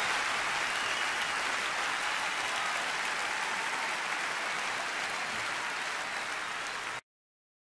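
Concert audience applauding, the clapping slowly fading, then cut off abruptly near the end.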